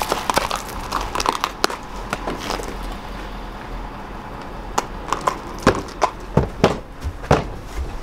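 A horse's hooves clopping on pavement, then a run of loud, sharp knocks and thumps from about five seconds in as it steps into an aluminum horse trailer.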